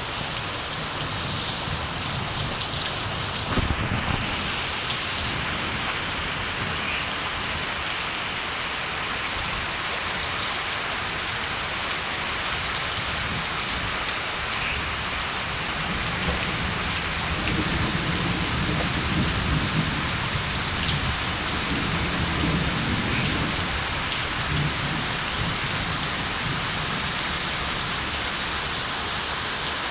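Steady countryside rain falling, with distant thunder rolling low from about the middle of the stretch for several seconds and then fading. A brief low thump comes about four seconds in.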